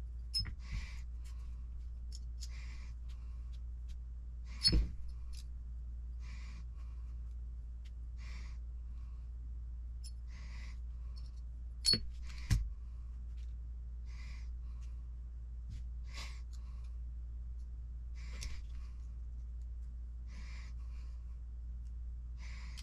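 Pliers and a small metal tool clicking and clinking against small metal and plastic parts: a few sharp clicks, the loudest just under five seconds in and a pair around twelve seconds, over a steady low hum. A soft hiss recurs about every two seconds.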